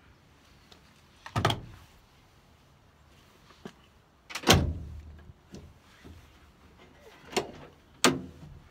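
Four loud knocks on the metal of a van's open rear door, with a short low boom after each, as a curtain wire is fitted across its window. They come about a second in, at the middle, and two close together near the end.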